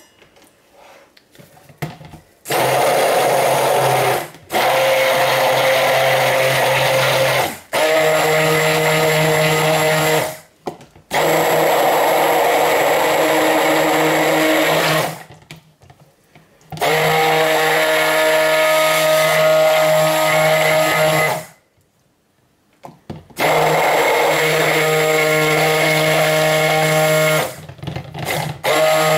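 Cuisinart Smart Stick immersion blender running in about six bursts of a few seconds each, with short pauses between them, as it blends cold-process soap batter in a plastic jug toward medium trace.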